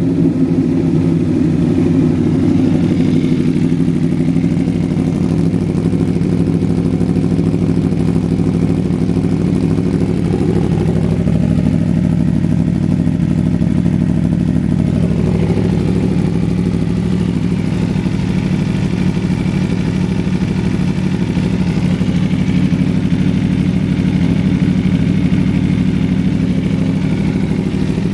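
Aprilia Tuono V4 1100 Factory motorcycle's 1077 cc V4 engine idling steadily.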